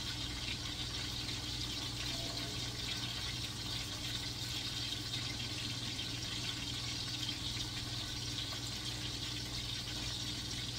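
Sausage links sizzling steadily in olive oil in a stainless steel frying pan over moderate heat, an even crackling hiss, with a low steady hum underneath.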